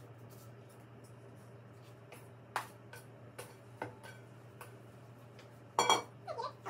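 Scattered light knocks and taps of hands handling things on a kitchen counter, with a louder clatter about six seconds in, over a steady low hum.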